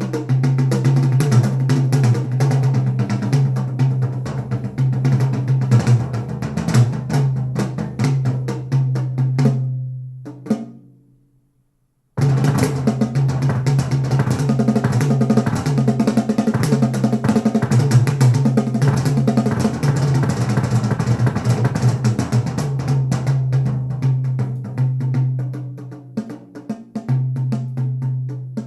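Drum-heavy music with a strong bass line played through a JBL Control 28 speaker, an 8-inch woofer with a horn-loaded tweeter. One track fades out about ten seconds in, and after a second of silence another starts abruptly.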